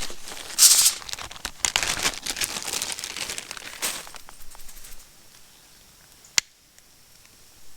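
Crinkling and rustling, as of material being crumpled and handled, in irregular bursts for about five seconds; it then goes quiet, with one sharp click about six seconds in.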